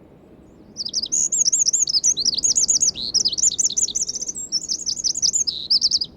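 Eurasian wren singing: one long, fast song of high trills and rapid notes, starting about a second in and stopping abruptly near the end.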